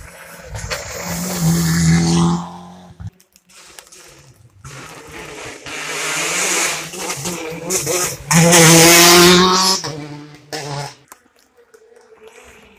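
Two rally cars passing in turn, each engine running hard at high revs with a strong steady note and then cutting off suddenly: the first about two seconds in, the louder second near ten seconds.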